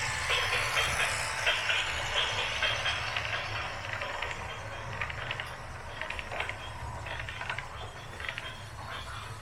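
Heavy machinery running: a steady low engine rumble under irregular metallic rattling and hissing, loudest in the first couple of seconds and easing after.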